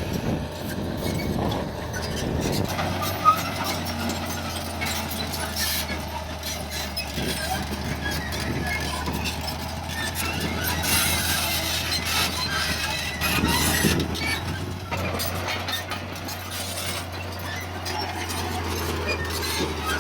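Diesel engine of heavy earthmoving machinery running steadily with a low hum, with one sharp knock about three seconds in.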